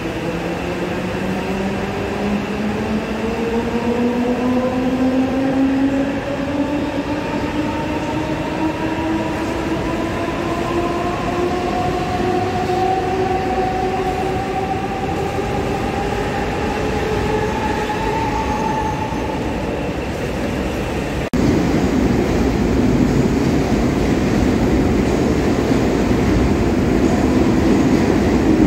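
Mumbai suburban electric multiple-unit local train pulling out, its traction motors whining in several tones that rise steadily in pitch as it gathers speed. About two-thirds of the way through, the sound cuts abruptly to another local train running along a platform, louder and noisier, with a steady low tone.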